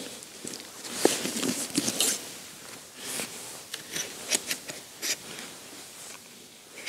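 Camera gear being handled: a mirrorless camera with a macro lens is taken out of a fabric camera bag and turned over in the hands. It makes rustling of fabric with a scatter of sharp clicks and small knocks, loudest about a second in and again around four to five seconds in.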